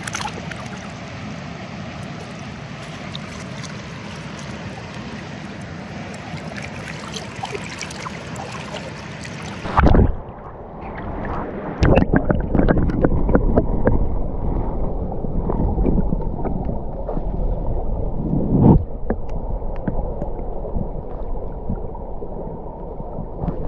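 Flowing river water, a steady even rush. About ten seconds in it changes abruptly to a louder, duller rumble of wind buffeting the microphone, with uneven gusts and a few thumps.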